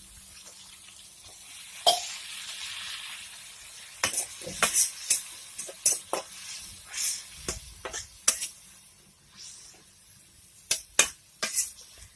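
Food frying in oil in a pan while it is stirred: a spatula clinks and scrapes against the metal, and there is a short stretch of sizzling early on. From about four seconds in, the utensil knocks against the pan many times in quick, uneven strokes.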